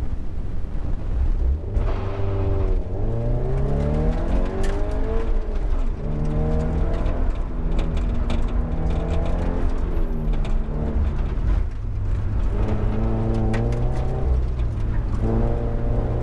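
Scion FR-S's 2.0-litre flat-four engine pulling away from a standing start and working through an autocross course, heard from inside the car. The engine note rises and falls repeatedly as the driver gets on and off the throttle.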